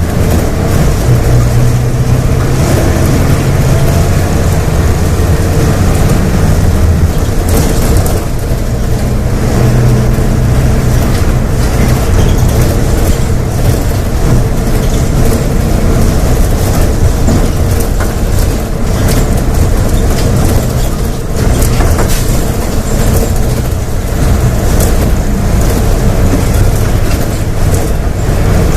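Volksbus 17.230 OD bus's diesel engine running hard on the road, its note rising and falling as the revs change, with a short easing about eight seconds in.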